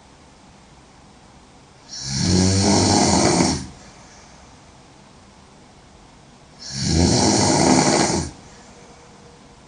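A woman snoring loudly: two long snores of about a second and a half each, roughly five seconds apart, with quiet breathing between them.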